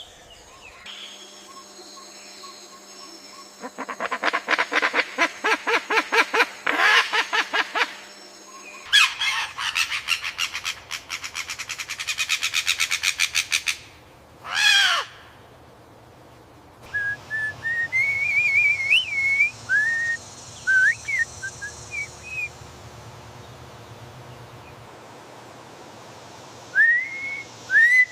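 Bird calls from several birds in turn: two long rapid rattling trills, then a single sweeping squeal that falls in pitch, then a series of short whistled notes.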